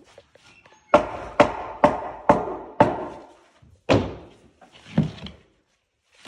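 Repeated heavy knocks of nailing into the wooden floor framing: five quick blows about two a second, then two more spaced about a second apart.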